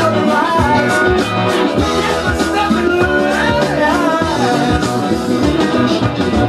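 Funk-rock song with a male voice singing over guitar, bass and a steady drum beat, played from a vinyl LP on a turntable.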